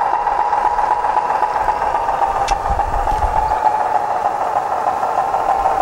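Diesel railcar engine sound from a DALLEE soundcard, played through the radio-controlled 16mm-scale railcar model's small onboard speaker, running steadily as the model travels along the track. There is a brief click about two and a half seconds in.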